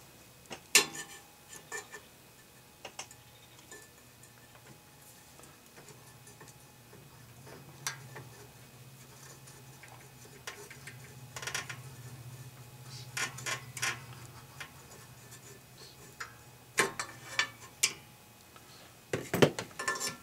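Scattered metallic clicks and clinks of needle-nose pliers on a small-engine carburetor's linkage and fittings as the carburetor is worked loose, single and in small clusters, with the loudest cluster near the end.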